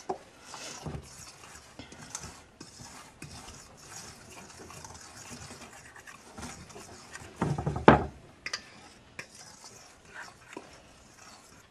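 A fork stirring a dry flour mixture in a stainless steel bowl: soft scraping with light clicks of metal on metal. One louder knock comes about eight seconds in.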